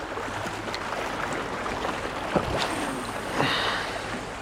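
Sea water washing and lapping steadily, with a sharp click a little over two seconds in.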